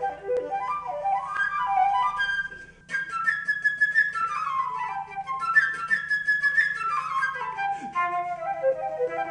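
Background music led by a flute, playing quick melodic runs that often fall in pitch, with a brief drop in level about two and a half seconds in.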